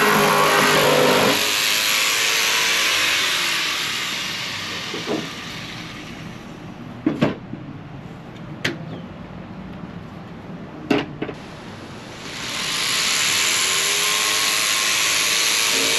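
Ridgid cordless jigsaw cutting a thin fibreboard template sheet, then switched off about a second in, its motor winding down. A few sharp knocks follow as the sheet and clamp are reset, and near the end the jigsaw starts up again, rising in pitch, and cuts on.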